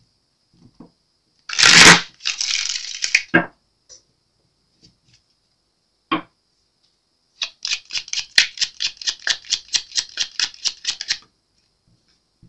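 A deck of tarot cards being shuffled by hand: a loud rush of sliding cards about two seconds in, then near the end a fast, even run of about twenty card slaps, roughly six a second.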